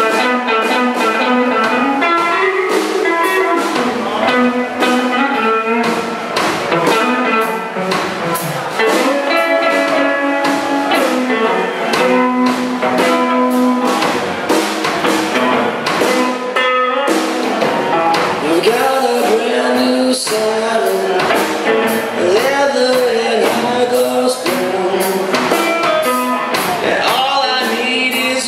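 Live blues rock played on an acoustic guitar and a drum kit: busy picked guitar notes over steady drum and cymbal hits, with bending, gliding notes in the second half.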